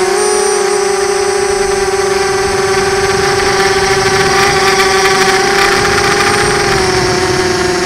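FPV quadcopter's electric motors and propellers whining steadily at one pitch, heard from the camera on board, over a steady hiss. The pitch dips slightly near the end.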